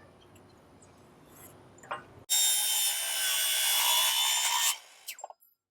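Power saw cutting through a length of 2x2 angle, a single continuous cut of about two and a half seconds that starts abruptly about two seconds in and stops sharply.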